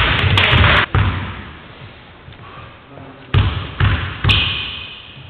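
A basketball bounced three times, about half a second apart, on a sports hall's wooden floor as a player dribbles before a free throw, each bounce echoing in the hall. It is preceded by a second of loud game noise that cuts off abruptly.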